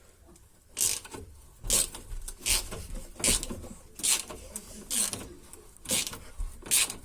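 Ratchet wrench with an 18 mm socket turning a car's stabilizer-link nut, the ratchet clicking in short, even strokes roughly once a second, about eight in all.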